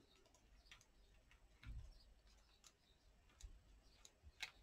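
Near silence with a few faint scattered clicks, a soft low thump about two seconds in and a sharper click near the end: small craft pieces and tools being handled on a tabletop.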